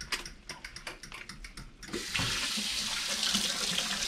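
Kitchen faucet turned on about halfway through, water running and splashing into a sink as hands are rinsed under it. Before that, a run of light clicks.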